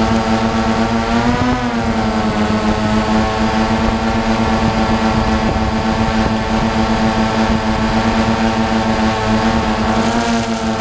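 Drone's electric motors and propellers heard from its onboard camera: a steady buzzing hum whose pitch rises briefly about a second and a half in and again near the end, as the rotors speed up to hold position.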